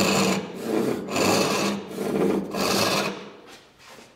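Japanese ryoba pull saw ripping down a tenon cheek with the grain, its rip teeth rasping through the wood in back-and-forth strokes, about two a second, fading out near the end.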